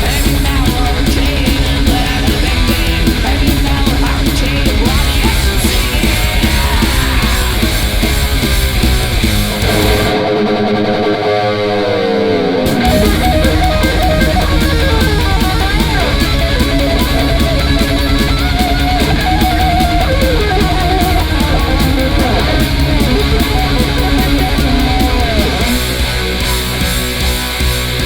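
Instrumental passage of a 1984 German thrash/speed metal recording: distorted electric guitars, bass and drums playing fast. About ten seconds in the band drops out for a couple of seconds, leaving a lone guitar playing falling, sliding notes, then the full band crashes back in.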